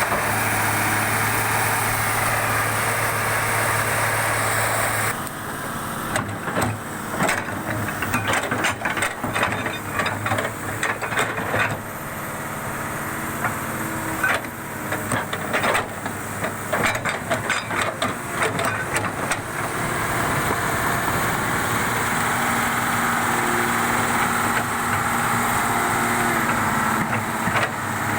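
Excavator diesel engine running, with a long run of knocks and clanks from about six seconds in to about twenty seconds, then running steadily again.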